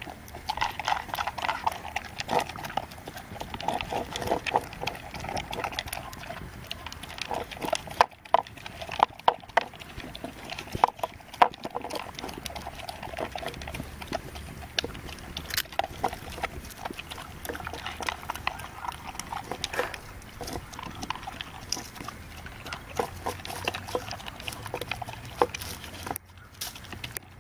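A dog eating food from a white plastic bowl: steady crunching and chewing, with a run of louder, sharper clicks about eight to twelve seconds in.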